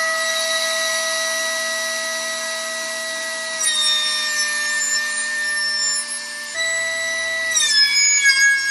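Benchtop thickness planer running and cutting boards to final thickness: a loud, steady whine over the noise of the cutter, dipping in pitch about three and a half seconds in, rising again, then dropping near the end.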